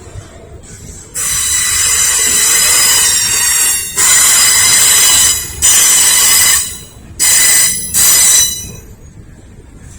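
Intermodal freight train's steel wheels squealing against the rails in five loud high-pitched bursts; the first lasts about three seconds and the last two are short, over the low rumble of the passing cars. Heard as the way the wheels hit the track at this spot rather than a bearing issue.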